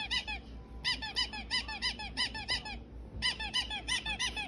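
Motion-activated noisemaker dog toy playing its squeak sound: rapid runs of short, identical squeaks, several a second, each rising and falling in pitch, broken by two short pauses.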